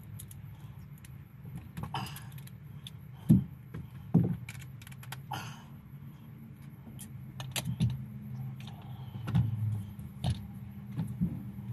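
Loose metal bolts, washers and hand tools clinking and knocking as they are handled, with two sharp knocks about three and four seconds in and a few lighter clicks after. A steady low hum runs underneath.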